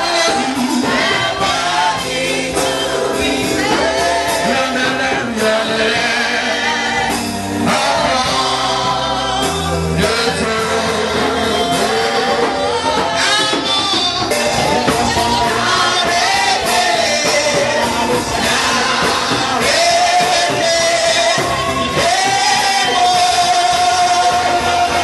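Congregation and worship leaders singing a gospel praise song together over amplified music with a steady bass line, heard through the church sound system.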